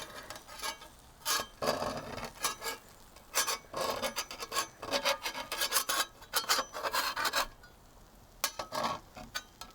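A utensil scraping repeatedly at farinata stuck to a cast iron skillet, in short irregular strokes. The crust is sticking, which the cook thinks may be because the pan was not seasoned well enough.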